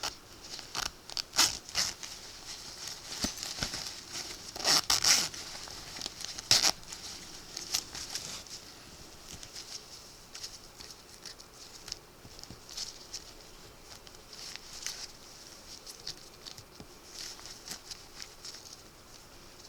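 Thin windbreaker fabric rustling and crinkling as the jacket is handled and opened up: irregular scratchy rustles, loudest in the first seven seconds, then softer and sparser.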